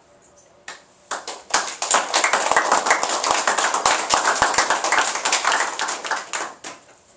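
Audience applauding: many hands clapping, starting about a second in and dying away near the end.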